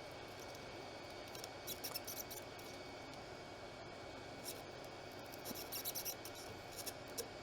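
Faint small clicks and scratching of hand tools working a component on a circuit board during desoldering, in two clusters, about a second and a half in and again around six seconds. Beneath them are a steady hiss and a thin, steady high tone.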